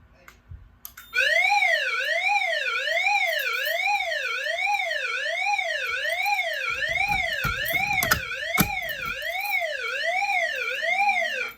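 Fire alarm voice-evacuation speaker sounding its electronic alert tone for an agent (suppression) release: a siren-like tone that sweeps up and down about once every three quarters of a second. It starts abruptly about a second in, after a few clicks, and cuts off just before the end, with a few low thumps partway through.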